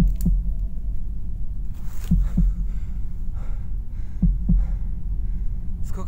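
Heartbeat sound effect: slow lub-dub double thumps, about one pair every two seconds, over a low, steady drone.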